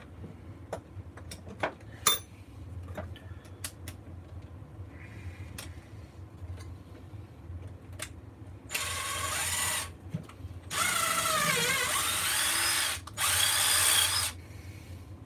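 Ridgid cordless drill run in three bursts in the second half, the longest in the middle, its motor whine sagging in pitch and recovering as the bit loads up. A few light clicks of tools being handled come before it.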